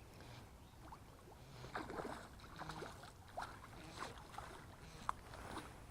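Faint, irregular splashing and sloshing of water as a small hooked trout thrashes at the surface while being played in.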